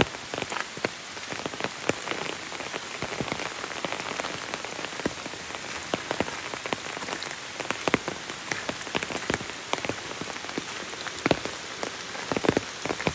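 Rain falling, a steady hiss with many irregular sharp taps of drops landing.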